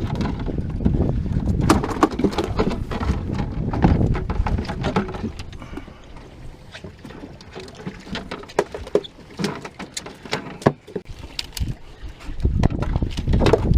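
Wind rumbling on the microphone aboard a small fishing boat, heavy in the first few seconds and again near the end. Sharp knocks and clicks are scattered throughout.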